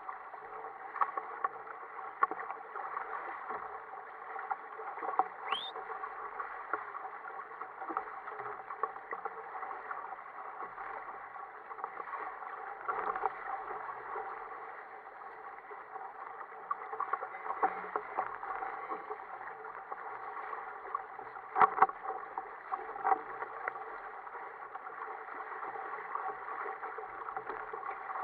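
Water rushing and slapping against the hull and outrigger floats of an Ocean Kayak Prowler 13 sailing through choppy sea, a steady wash broken by many small irregular slaps. One sharper, louder knock comes about three quarters of the way through.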